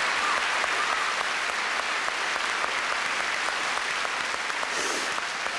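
Large seated audience applauding, many hands clapping steadily, easing a little near the end.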